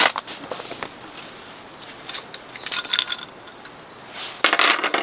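Camping gear handled on a metal-framed folding table: a sharp knock at the start, then small hard items clicking and clinking, with a pouch and fabric rustling loudest near the end.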